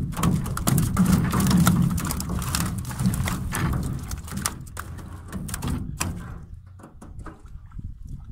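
Irregular knocks, splashes and rustling as a fish trap's net is hauled at the side of a small boat full of live fish, over a low wind rumble on the microphone. The knocking is busiest at first and thins out for the last couple of seconds.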